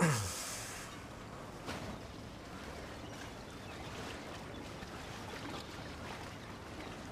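Steady shoreline ambience of sea water washing against rocks. It opens with a brief loud swoosh that drops quickly in pitch.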